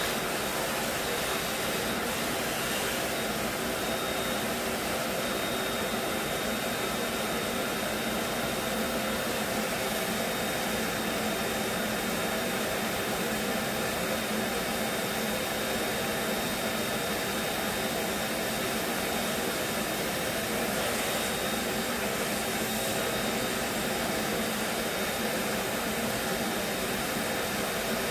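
Vacuum cleaner running steadily as its hose and wand are worked over the floor: an even rushing noise with a thin, steady high whine on top.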